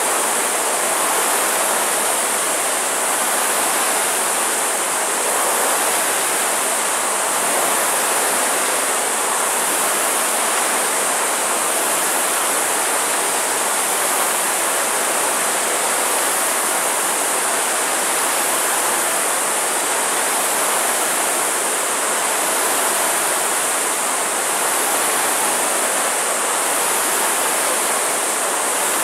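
Several Concept2 air-resistance rowing ergometers running at once under racing effort: a steady whoosh of their spinning flywheel fans, swelling faintly with each stroke, about one swell every two seconds.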